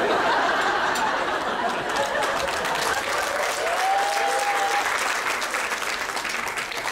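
Audience applause, a dense steady clapping with voices mixed in, easing off slightly toward the end.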